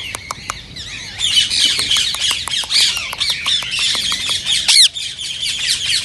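Indian ringneck parakeet chattering: a run of fast high clicks, then dense high-pitched chirps and short rising squawks, with one louder squawk a little before the end.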